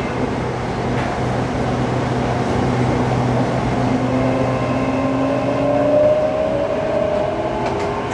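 Hitachi-built electric commuter train under way, its traction motors whining over a steady low hum. The whine slowly rises in pitch through the middle as the train picks up speed.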